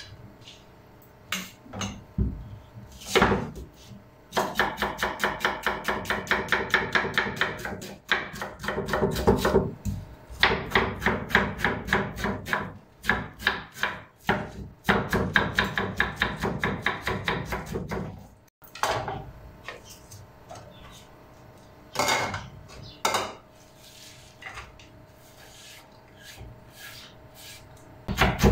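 Chef's knife chopping onion on a wooden cutting board: fast, even runs of knife knocks on the wood for much of the time, then only a few scattered taps near the end.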